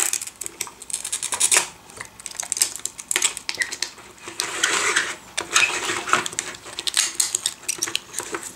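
Glass touch screen of a Siemens KTP400 HMI being pried off its adhesive edge with a thin metal tool: irregular clicks, ticks and crackles of metal on glass, with the glass cracking as it comes away.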